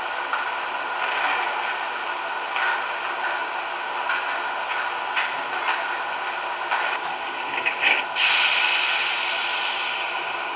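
MTH R40 model subway train running on its track: a steady rushing clatter with faint ticks, growing louder a little past two-thirds through.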